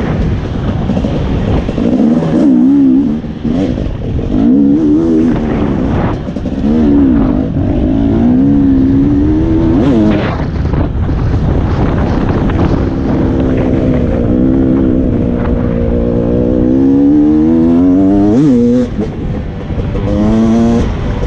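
Dirt bike engine revving up and down as the bike is ridden over rough off-road ground, its pitch rising and falling with the throttle. Late on it makes one long climb in pitch, then drops sharply at a shift.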